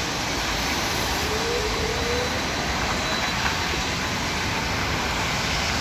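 A trolleybus pulling away from the stop: its electric motor gives a faint rising whine about a second in, over a steady hiss of traffic on the wet road.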